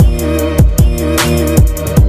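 Background music: a steady electronic drum beat, about two and a half kicks a second, under held melodic tones.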